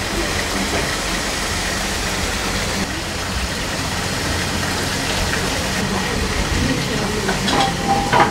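Steady mechanical hum and rushing noise of a restaurant kitchen, like running ventilation, with a brief louder sound near the end.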